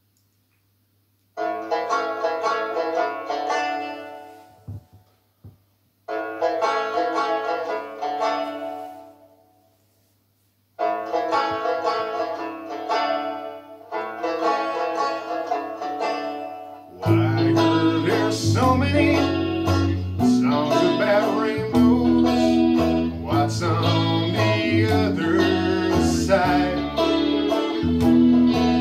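Recorded backing track playing through PA speakers. A plucked banjo intro comes in short phrases with pauses between them, then bass and drums join about 17 seconds in and the full band carries on.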